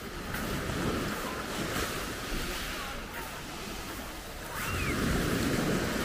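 Small sea waves breaking and washing up a coarse-sand shore, the surf swelling twice, about a second in and again near the end.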